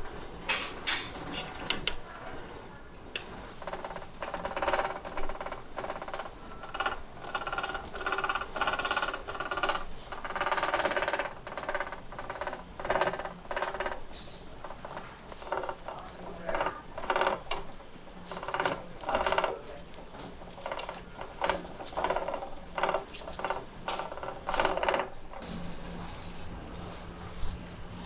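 Buffet dining-room clatter: tableware and stainless serving tongs clinking in short, irregular bursts. About 25 seconds in, a steadier hiss with a low hum comes in.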